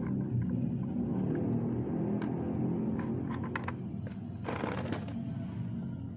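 Steady low engine-like rumble, with scattered light clicks as a wire frame is fitted into a plastic bucket, and a short rustle about four and a half seconds in.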